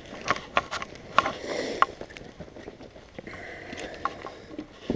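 Handling noise from a white plastic fish lip-grip holding a striped bass: several sharp clicks and knocks in the first two seconds, then quieter rustling.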